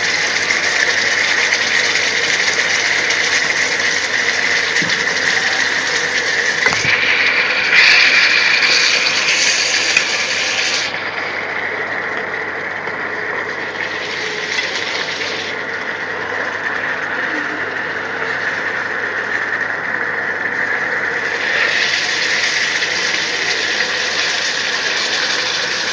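Raw-banana kofta curry simmering in a non-stick kadai: thick tomato gravy bubbling and sputtering with a steady crackle as it cooks down.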